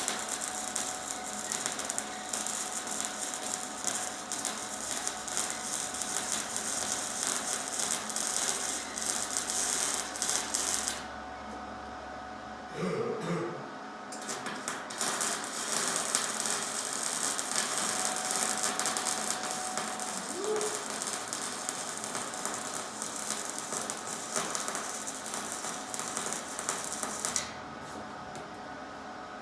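Welding arc crackling steadily while a new exhaust flex pipe is welded in, in two long runs: it stops about eleven seconds in, starts again a few seconds later, and cuts off shortly before the end.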